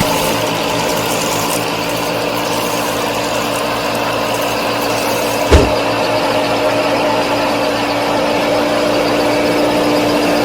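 Small motor of a homemade miniature farm machine running steadily with a constant hum and a light mechanical rattle, with one sharp knock about halfway through.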